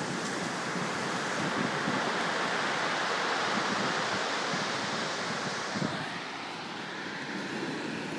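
Surf breaking on a beach: a steady rushing wash of waves, easing a little about six seconds in.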